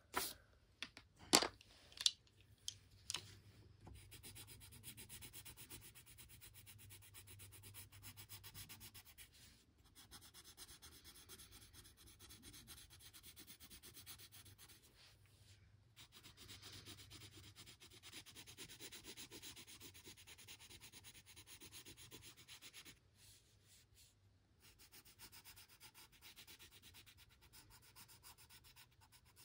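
Colored pencil shading back and forth on a coloring-book page: a quiet, fast, steady scratching with a few short pauses. A few sharp knocks in the first three seconds.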